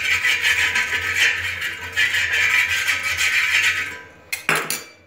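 Mustard oil sizzling on a hot iron tawa as it is rubbed over the surface, a loud steady hiss that fades out about four seconds in. A couple of short knocks follow near the end.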